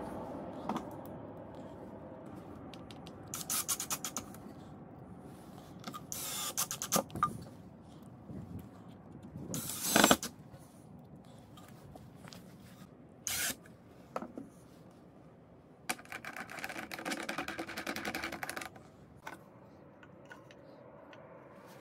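Workshop handling noises: short bursts of a cordless drill driving screws into wood, among knocks and scrapes of tools on a wooden box. The sharpest knock comes about ten seconds in, and a longer rattly run of the drill comes near the end.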